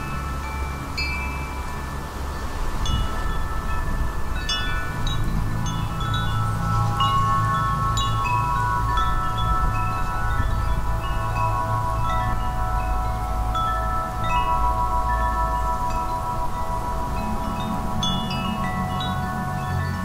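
Wind chimes ringing continuously, many struck tones overlapping and ringing on, over a steady low rush of wind.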